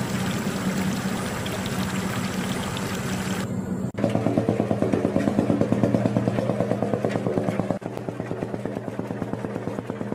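Heavy truck engine sound running steadily, then, after an abrupt cut about four seconds in, throbbing about five times a second, with another short break near eight seconds.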